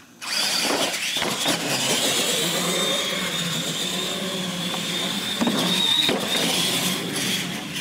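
Two radio-controlled monster trucks launching together off the start and racing down a concrete lane, their motors starting suddenly and then whining steadily. A few sharp knocks come through, one about six seconds in as a truck comes down off a ramp.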